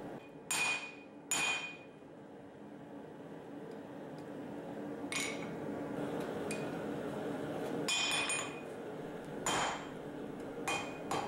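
Hand hammer striking red-hot mild steel on an anvil, each blow ringing briefly. The blows are widely spaced: two near the start, then after a pause of a few seconds several more, over a steady low hum. The smith is setting a mark in the bar to isolate the tab before drawing it out.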